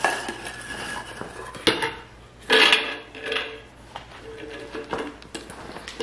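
Pet food bowls clattering and scraping on the floor as puppies push and flip them around. There is a sharp knock a little before the two-second mark and the loudest clatter comes shortly after; the rest is lighter knocking.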